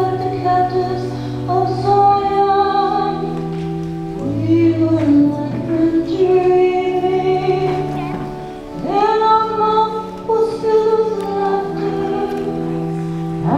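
Choir singing a slow piece, with accompaniment holding long steady bass notes beneath the voices.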